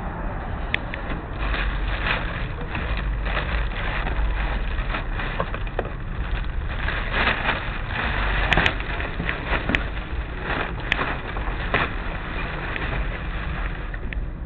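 Outdoor street noise with steady low wind rumble on a handheld camera's microphone. Scattered knocks and rustles of the camera being handled run through it, with a few sharp clicks in the second half.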